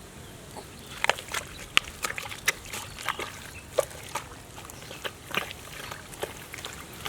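Irregular wet splats and squelches of hands working in pond mud and water, starting about a second in, two or three a second.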